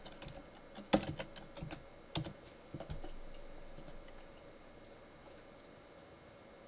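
Computer keyboard typing: a handful of separate keystrokes in the first three seconds, then stopping, over a faint steady hum.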